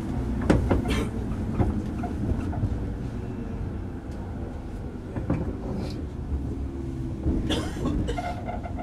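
Inside a JR Kyushu 103 series 1500-subseries electric train's motor car while it runs: a continuous low rumble of wheels on rails, with a few short clicks.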